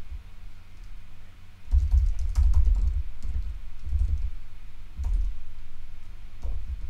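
Typing on a computer keyboard: irregular key clicks with dull thumps, starting about two seconds in.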